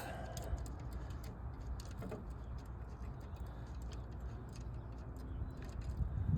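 Scattered light metallic clicks and ticks of a spanner and nut as a cable terminal is undone from a ride-on mower's starter solenoid, over a steady low background rumble.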